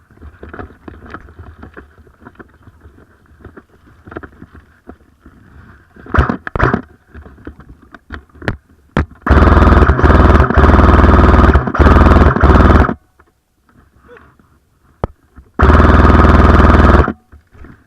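Airsoft gun firing on full auto close to the microphone: a string of bursts about nine seconds in, lasting about three and a half seconds, and a shorter burst near the end, so loud that it distorts. A few sharp clicks come before them.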